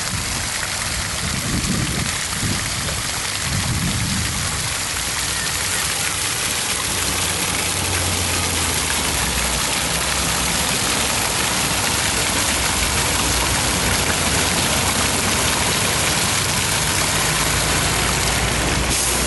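Fountain jets splashing into a rough stone basin, making a steady rush of falling water.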